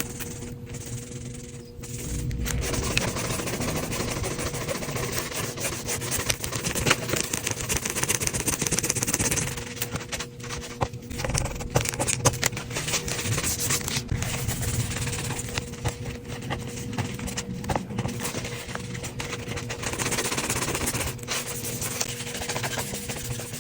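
Rapid, dense scraping and scrubbing on a grimy iPad's casing and glass during a deep clean.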